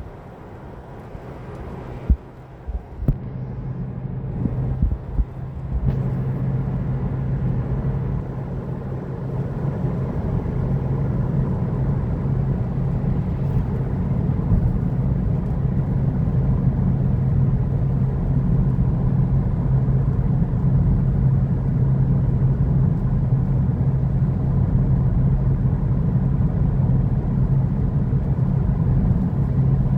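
Steady low engine hum and rumble that grows louder over the first several seconds, then holds steady, with a few sharp knocks near the start.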